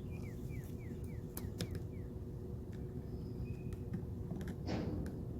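A bird repeats a quick, high, falling chirp about four times a second for the first two seconds over a steady low outdoor rumble. A few light clicks follow, and near the end there is a short whooshing scrape, the loudest sound.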